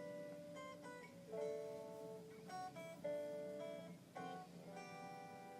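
Soft background acoustic guitar music, slowly plucked notes and chords.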